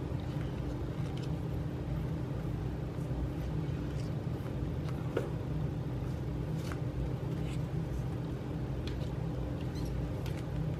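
A steady low hum, with scattered faint clicks of plastic-coated photocards being shuffled in the hands and laid down on a table.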